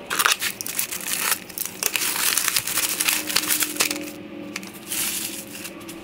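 Plastic poly mailer bag being opened and handled, with irregular crinkling and rustling of plastic and packaging as the contents are pulled out.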